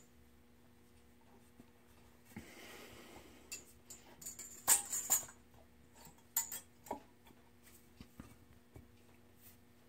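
Small metal parts and tools handled during blower assembly: a few light metallic clinks and clicks, loudest in a cluster about halfway through, after a short scraping rustle near the start.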